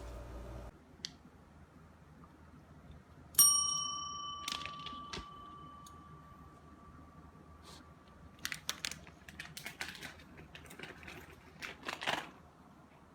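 A single metallic ding, struck once and ringing on for about five seconds before fading, followed by scattered light clicks and rustling.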